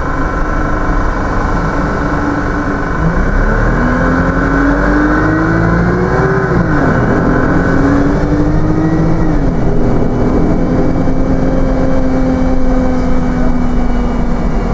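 Wright StreetLite Max single-deck bus's diesel engine heard from inside the saloon as the bus pulls away: the engine note rises, drops at a gear change, rises again and drops at a second gear change, then runs steadily.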